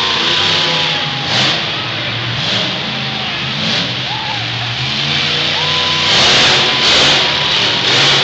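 Monster truck engine revving hard and dropping back repeatedly as the truck drives over dirt mounds and crushed cars, under the noise of a big arena crowd that swells about six seconds in.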